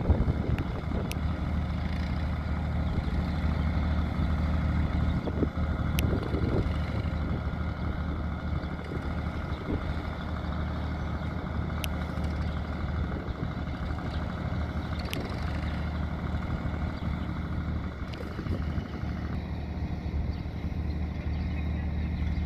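Farm tractor engine running steadily with a low hum while it pulls a loaded cart.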